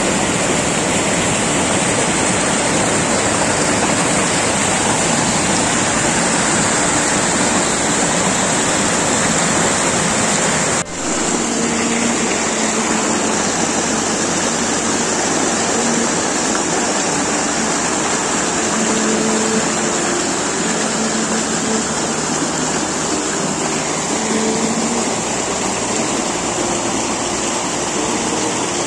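Mountain stream rushing over rocks and small cascades: a loud, steady rush of water, broken once about eleven seconds in where the recording cuts.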